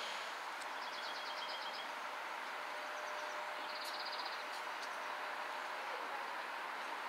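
Steady outdoor background noise beside a tram line, with two short runs of rapid high bird chirps, about a second in and again around four seconds in.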